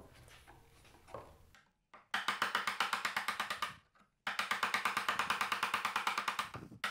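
A chisel being tapped rapidly and evenly into wood, about ten light strikes a second, in two runs with a short break between them, as it is steered along a curved cut.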